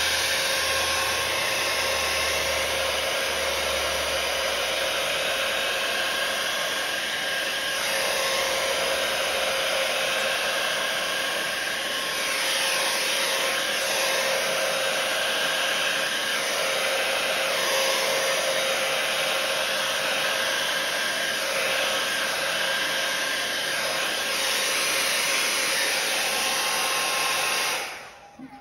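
Hair dryer running steadily with a constant motor whine, blowing wet acrylic paint across the canvas in a Dutch pour, then switched off abruptly near the end.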